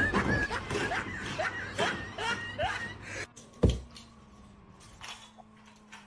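A person giggling in short high falling bursts, about two a second, stopping about three seconds in; then a single dull thump over a faint steady hum.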